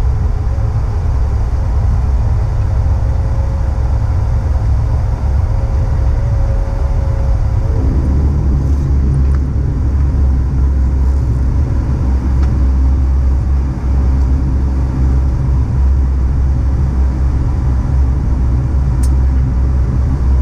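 Cabin noise of a De Havilland Canada Dash 8 Q400 rolling along the runway after landing: a steady low drone from its Pratt & Whitney Canada PW150A turboprop engines and propellers, turning at low power. A thin steady whine above it stops about eight seconds in, and the low drone grows heavier from there.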